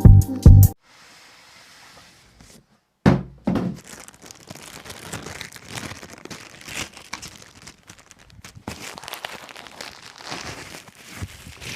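A thunk, then several seconds of packaging being handled: plastic wrapping crinkling and rustling as the speaker is unboxed.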